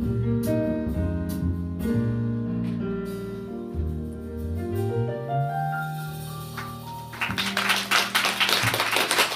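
Small jazz combo with upright bass playing the closing bars of a ballad, the bass sliding upward before a final chord that fades away. Audience applause breaks out about seven seconds in.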